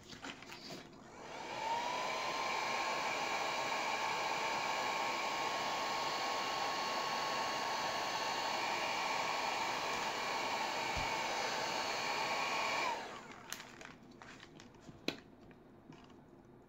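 Large heat gun running on its lowest heat and fan setting, used to soften cured resin in a silicone mold so it releases. It starts about a second and a half in with a rising whine that settles into a steady whir, then switches off about thirteen seconds in. A single sharp click follows a couple of seconds later.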